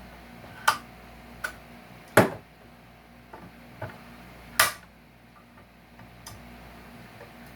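Large pliers working nails and staples out of salvaged couch wood: about half a dozen sharp metal clicks and knocks at irregular intervals, the loudest about two seconds in.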